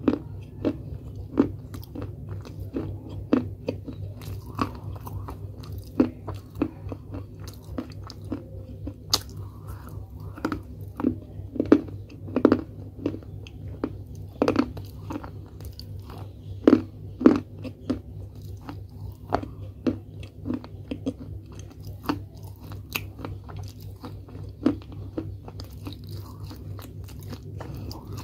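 Close-up chewing of brittle baked clay pot pieces: many sharp, irregular crunches in the mouth, over a steady low hum.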